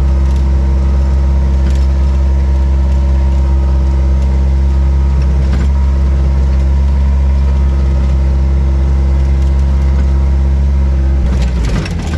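Case 430 skid steer's diesel engine running steadily, driving a pick-up broom sweeper attachment. Near the end the sound dips and wavers.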